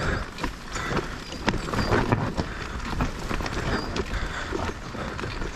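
Mountain bike rolling down a dirt trail, its tyres running over the ground and the bike rattling, with frequent irregular knocks and clicks over bumps.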